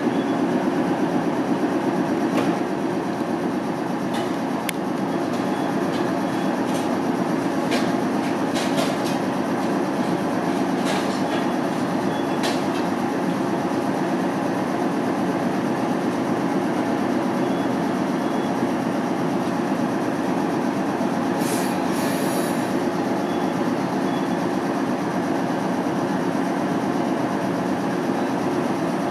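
JR East 719 series electric trains standing at the platform, their onboard equipment giving a steady low hum. A few short clicks come in the first half, and there is a brief hiss a little over twenty seconds in.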